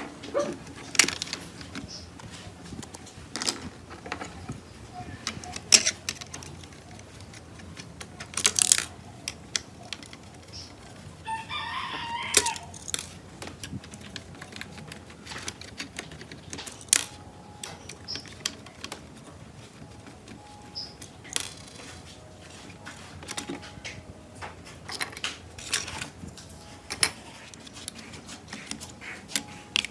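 Small screws being turned with a screwdriver and hard plastic parts of a toy RC car body handled on a table: scattered sharp clicks, taps and knocks. About eleven seconds in, a drawn-out call sounds in the background for a second or two.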